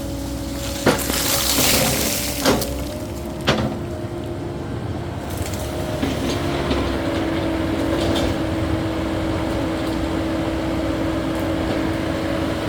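Caterpillar 308E2 mini excavator's diesel engine running steadily under hydraulic load while digging and moving dirt. It is marked by three sharp metallic knocks in the first four seconds, with a rush of noise between them.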